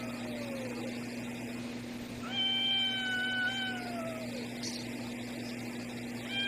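Cat yowling a warning at a dog: long, drawn-out calls of about two seconds each that slide down in pitch at the end, one fading out about a second in and another starting about two seconds in.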